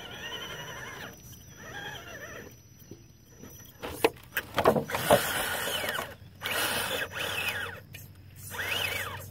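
Electric motor and metal-geared transmission of an Axial AX10 Deadbolt RC crawler whining in short throttle bursts, the pitch rising and falling, with several sharp knocks about four to five seconds in.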